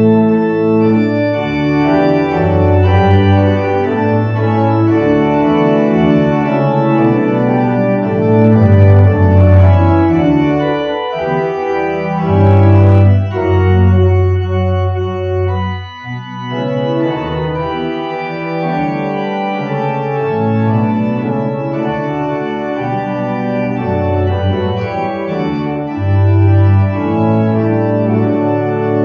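Church organ playing the hymn tune in full, sustained chords, with no singing, and a brief break between phrases about halfway through.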